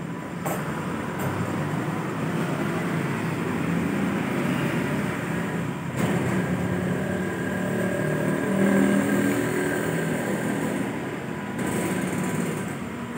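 Motorcycle engine running amid street traffic noise, growing louder around nine seconds in and easing off near the end.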